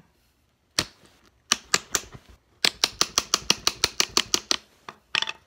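A hammer striking a metal setting tool on a small anvil, setting a metal fastener into a purse. There are a few single blows, then a fast run of about a dozen sharp taps at roughly five a second.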